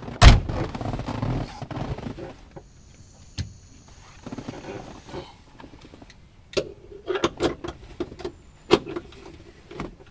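Metal seat-belt buckle and fittings of a 1965 Volvo 1800S clicking and rattling as the lap belt is fastened, with a heavy thump just after the start and a quick run of sharp clicks in the second half.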